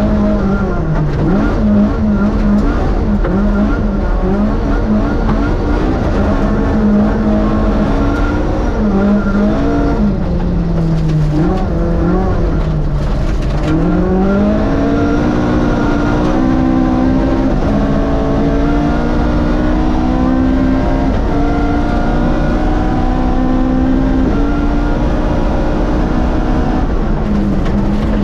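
Rally car's Vauxhall 2.0-litre race engine at stage pace, its revs rising and falling with gear changes and braking. The pitch dips lowest about twelve seconds in, then climbs steadily again.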